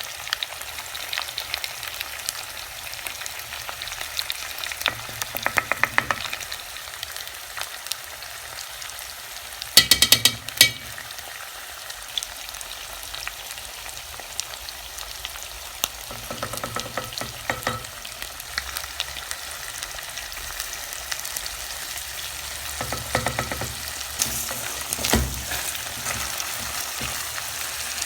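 Pre-cooked beef pieces frying in hot oil, sizzling steadily, while a spoon is stirred through them, scraping and clinking against the pan. A brief clatter of knocks comes about a third of the way in.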